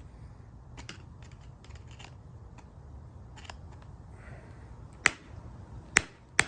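Hammer blows on the stamped metal retainer of a Ford window crank, hit hard to bend it so the old knob breaks off: a few light clicks and taps, then three sharp strikes in the last second and a half.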